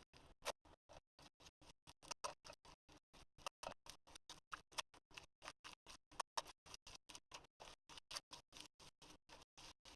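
Slime being squeezed and poked, giving a quick, even run of faint small clicks and pops, about five a second.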